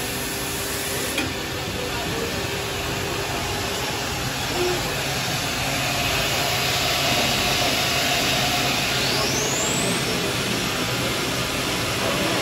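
Steady machine noise of a robotic drilling cell running: a constant hiss with a low hum underneath, growing a little louder about halfway through.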